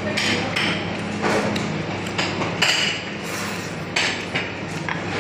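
Chopsticks knocking and clinking against a small porcelain bowl during eating, with several sharp clicks and short scraping bursts, over a steady low hum.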